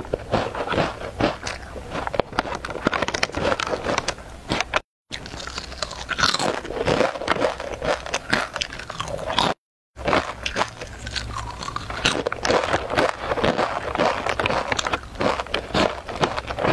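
Close-miked crunching and chewing of a crisp packaged snack, a dense run of irregular crackles, mixed with the crinkle of foil-lined snack wrappers being handled. The audio cuts out completely twice, briefly.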